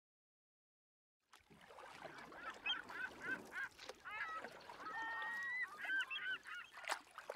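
Faint gulls calling: short repeated squawks, with one longer held note about halfway through, starting after a second and a half of silence.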